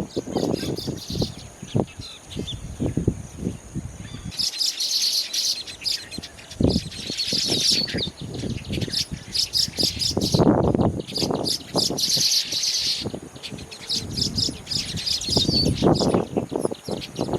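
Weaver birds chattering: dense bursts of rapid, high chirps that come and go in several spells, with low rumbling bursts of noise in between.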